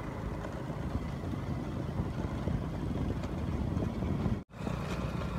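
Wind rushing over the microphone mixed with the running of a moving motor scooter and its tyres on the road. The sound cuts out completely for an instant about four and a half seconds in.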